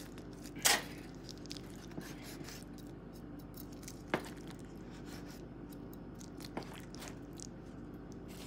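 Knife cutting through baked ziti in a disposable aluminium foil pan, with a few sharp clicks and crinkles as the blade meets the foil, the loudest under a second in. A steady low hum runs underneath.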